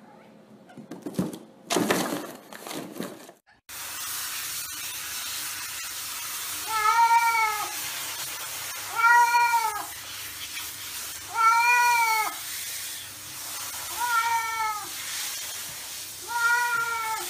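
A wet cat meows five times while being bathed, each meow drawn out and arching up then down in pitch, about every two and a half seconds, over the steady hiss of running shower water. A few brief, loud scuffling noises come before it in the first few seconds.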